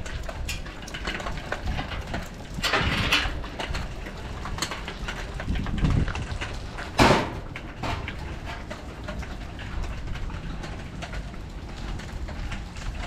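Rain falling, with many small drops ticking and a low rumble of wind on the microphone; a louder rush comes about three seconds in, and a single sharp knock about seven seconds in.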